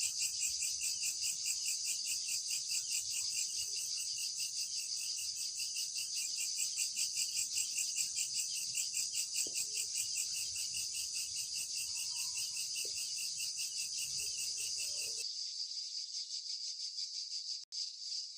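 Crickets chirring in a fast, even pulse of high-pitched chirps. About fifteen seconds in, the sound switches abruptly to a smoother, thinner chirring, with a brief dropout near the end.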